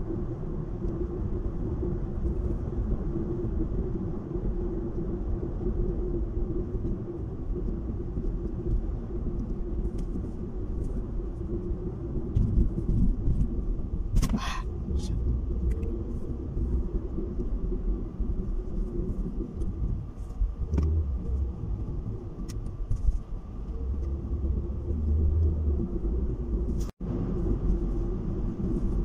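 Car driving at speed on a highway, heard from inside the cabin: a steady low rumble of engine and tyre noise. A brief higher-pitched sound comes about halfway through, and the sound cuts out for an instant near the end.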